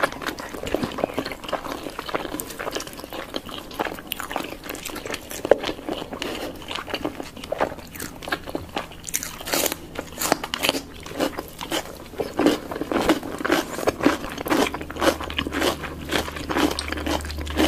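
Close-miked ASMR eating of chicken: crunchy bites and chewing, many sharp crunches close together.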